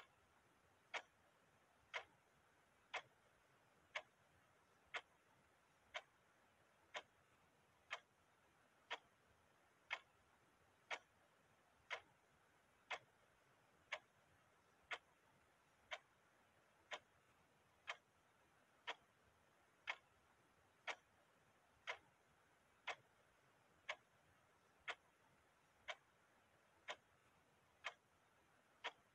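Clock ticking steadily, about one sharp tick a second, each tick alike.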